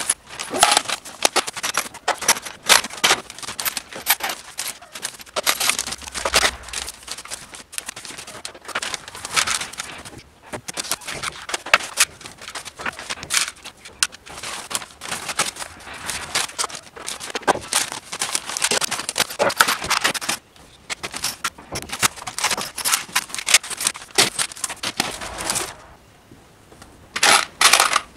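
Loose screws poured and handled into blue plastic storage bins, a busy run of clinking and rattling of metal on plastic, mixed with the rustle of brown paper bags. The clatter pauses briefly near the end.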